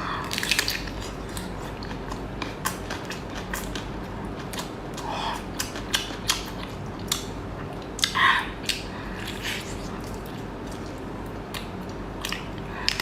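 Close-up eating of seafood: crunching bites and chewing, with many sharp cracks and clicks throughout and louder crunches about half a second, five and eight seconds in.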